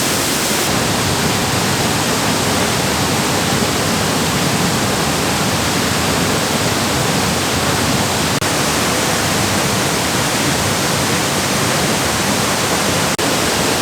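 Waterfall in heavy flow: a loud, steady rush of falling water with no break in it, except two very brief dropouts in the second half.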